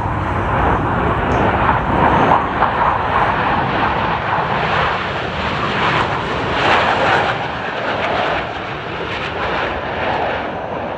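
Engine noise from Blue Angels display aircraft: a loud, steady rush that swells about two seconds in and again near seven seconds.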